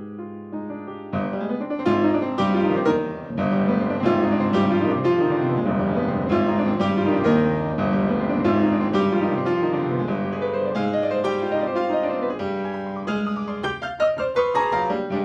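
Piano playing a busy passage of full chords and quick repeated notes, easing off near the end.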